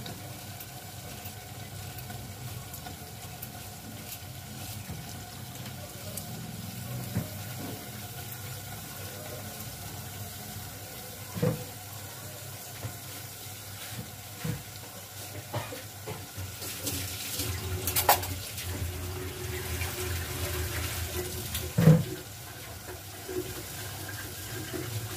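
Fried onion, tomato and meat masala cooking in a pot on a gas burner, a steady hiss over a low hum, while chunks of bottle gourd are cut and dropped in. There are a few sharp knocks, and a brief louder flurry about two-thirds of the way through.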